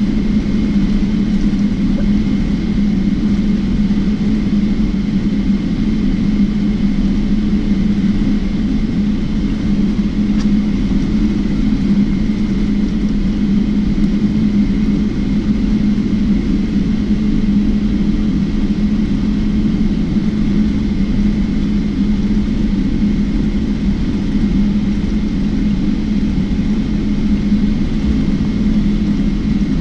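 Boeing 777-300ER cabin noise while taxiing, with the GE90-115B turbofans at idle: a steady low drone and a faint steady whine above it.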